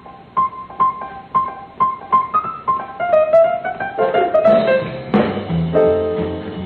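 Solo grand piano playing: a single high note struck over and over, about twice a second, then rising runs and fuller chords, with low bass notes joining a little past the middle.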